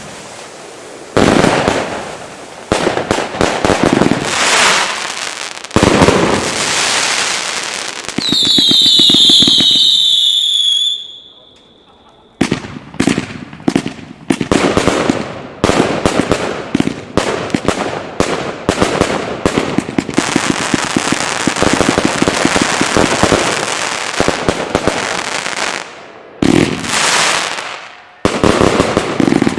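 Consumer F2 fireworks batteries firing in sequence: sharp launch reports and bursts, a cluster of whistles about eight seconds in, then after a short lull a long, dense run of rapid crackling reports.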